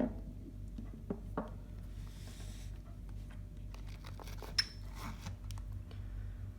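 Chrome-plated Snap-on hand tools clinking and tapping as they are picked up and set down, a few separate knocks with one short metallic ping, plus a brief cloth rubbing. A steady low electrical hum sits underneath.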